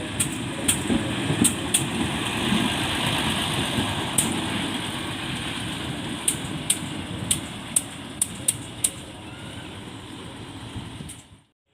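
Passing train: a steady rumble with a dozen sharp clacks scattered through it, some in quick pairs, as the wheels cross rail joints. The sound cuts off abruptly near the end.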